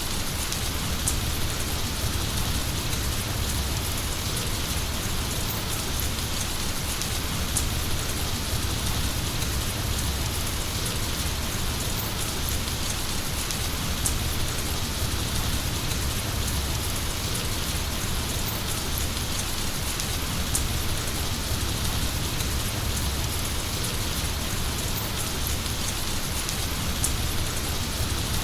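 Heavy rain falling steadily: a dense, even hiss with a low rumble underneath and scattered sharper drop hits.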